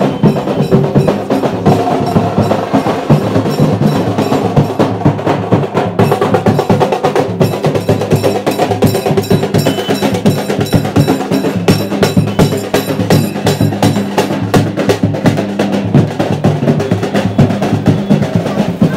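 Fast, continuous drumming with dense, sharp strokes over a steady low drone.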